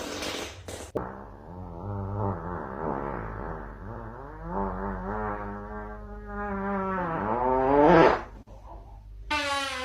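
A long, drawn-out fart sound, wavering up and down in pitch for about seven seconds. It climbs to its loudest just before it breaks off, and another drawn-out tone starts near the end.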